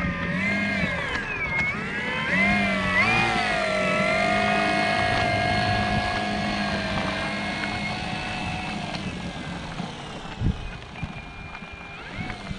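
Electric motor and propeller of an RC model plane (Flex Innovations RV8 G2 60E) taxiing on grass. The whine swoops up and down with the throttle, holds steady for several seconds, then dies away, with a single low thump near the end.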